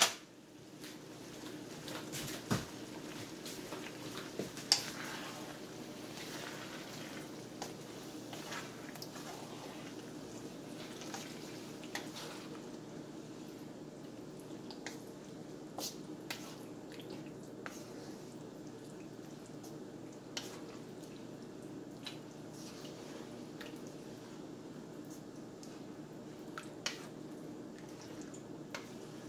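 A wooden spoon stirring thick tomato meat sauce in a hot skillet: wet squishing and simmering, with scattered light taps of the spoon against the pan, over a steady low hum.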